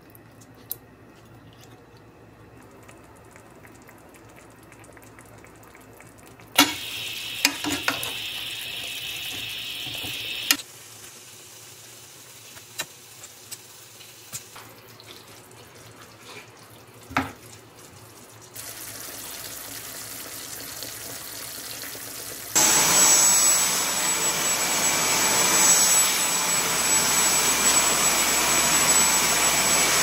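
Lotus root slices simmering in soy sauce in a frying pan, with a metal ladle clinking against the pan now and then. About three-quarters of the way in, a cordless stick vacuum cleaner takes over, running loudly with a steady high whine.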